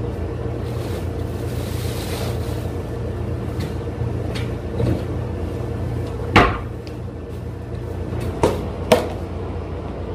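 Sharp knocks and clacks of clear plastic food containers being handled, the loudest about six and a half seconds in and two more near the end. Under them is a steady low hum.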